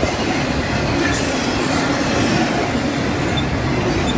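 CSX double-stack container freight train passing close by: the steady rumble of its well cars' steel wheels rolling over the rails.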